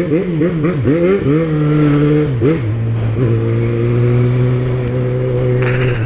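Yamaha XJ6 inline-four motorcycle engine revved in quick blips, about three a second. It is then held at steady revs, dips briefly about two and a half seconds in, and settles at a slightly lower steady pitch.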